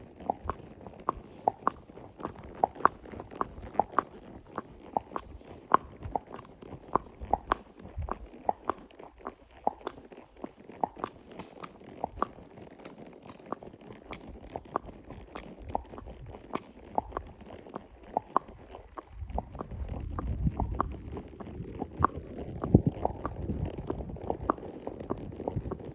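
A horse chewing, a steady run of crisp crunching clicks about two to three a second. From about twenty seconds in, a low rumbling noise rises underneath.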